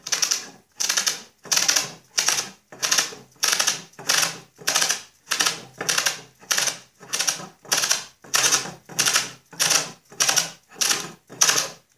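Masking tape tearing off its roll in short pulls, about two a second, as it is wound around a Snapper riding mower's clutch to build it up for centering.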